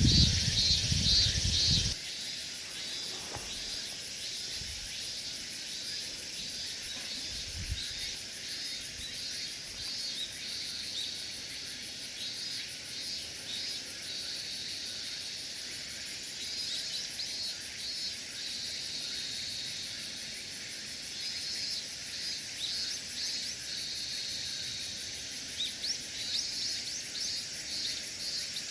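Insects chirping in repeated pulsed phrases over a steady high hiss of insect song. A louder low rumble sits under the first two seconds and cuts off suddenly.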